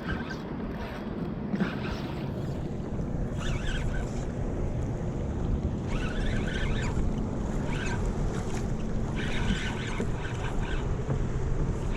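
Wind on the microphone over water sloshing against a kayak's hull, with a few brief splashes.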